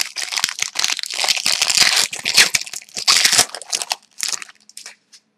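A hockey card pack wrapper being torn open and crinkled by hand, with dense crackling for about three and a half seconds, then a couple of short rustles near the end.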